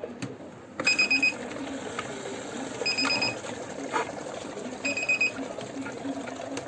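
Kent RO Grand+ water purifier's alarm beeping: a short string of rapid high beeps, repeated three times about two seconds apart, over a low steady hum, with a sharp click about four seconds in. It is the purifier's service alert, which goes off when its one-year reset timer runs out even though the filter is fine.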